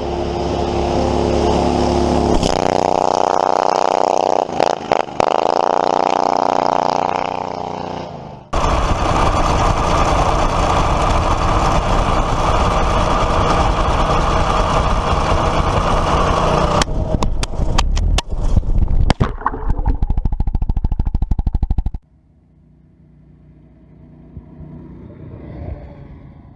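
Predator 212 single-cylinder gas engine on a homemade Power Wheels kart, running and revving in several abruptly cut clips. The pitch rises and falls between about two and eight seconds in, and there is a steady loud stretch with rapid clattering near its end. After about 22 seconds it is much quieter.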